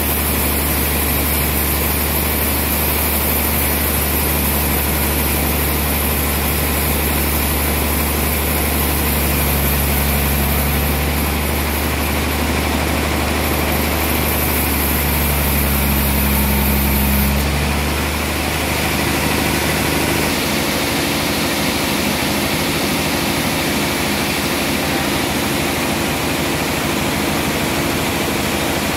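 Large sawmill band saw running with a steady low machine hum. About 18 seconds in, the low hum drops and the sound shifts slightly, then runs on steadily.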